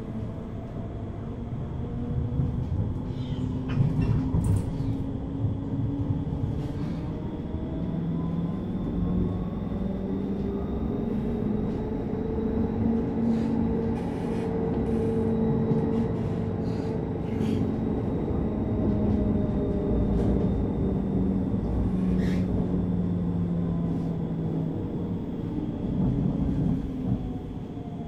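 Siemens NF8U tram's electrical equipment running: a steady hum and low rumble with several tones drifting slowly up and down, and a few scattered clicks.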